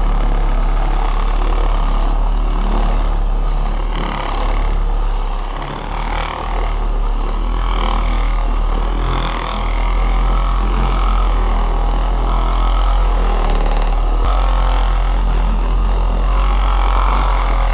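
Corded random orbital polisher running steadily, its pad buffing dried wax haze off painted metal. The motor's hum dips briefly a few times.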